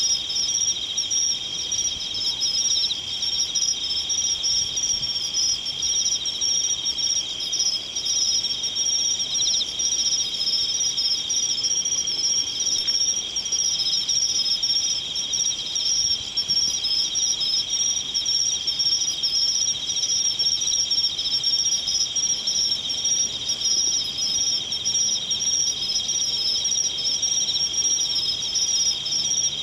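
Insects chirping in a dense, unbroken chorus: two high-pitched layers of rapid trilling that hold steady throughout.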